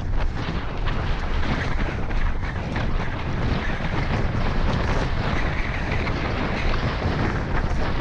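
Wind buffeting a helmet-mounted action camera's microphone on a fast mountain-bike descent at around 30 to 40 km/h, with a low rumble and scattered clicks and rattles from the tyres and bike running over a rough, dry dirt trail.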